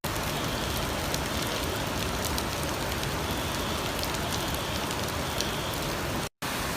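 Steady hiss of heavy rain with faint scattered patter, dropping out for a moment near the end.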